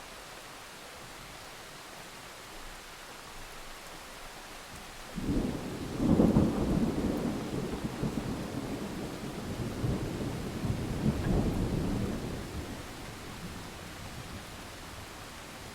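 Steady rain hissing, with a thunderclap breaking out about five seconds in and rumbling on in rolling waves for several seconds before dying away into the rain.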